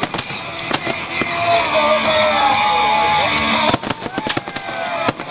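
Aerial fireworks shells bursting in quick succession, with sharp bangs and whistling effects that glide up and down in pitch. The loudest cluster of bangs comes near the end.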